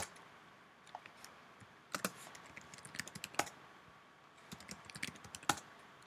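Computer keyboard keys tapped in irregular, scattered keystrokes, with a few sharper clicks among them, as a terminal command is pasted and entered.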